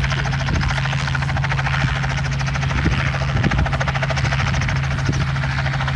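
Helicopter running steadily close by: the rapid, even chop of the rotor blades over a constant low engine hum.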